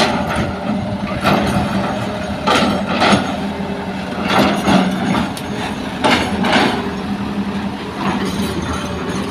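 Hitachi excavator's diesel engine running steadily, with repeated short clanks and scraping bursts, often in close pairs, as the bucket digs and loads sand and gravel.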